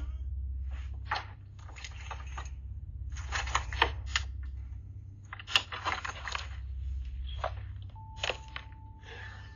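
Doorbell-camera microphone audio: a steady low hum with irregular rustling and clicking. A steady high tone comes in about eight seconds in.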